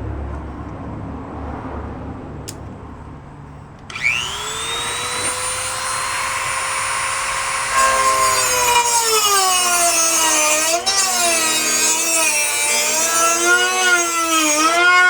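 Power tool cutting a hole for a side marker light. About four seconds in it spins up with a rising whine and settles to a steady high pitch. From about halfway through its pitch wavers up and down as it bites into the material under load.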